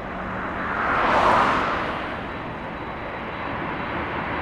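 Jet engine noise from a Boeing 747-8 freighter's four GEnx engines as it climbs out after takeoff. A steady rush swells to its loudest a little over a second in, then eases back.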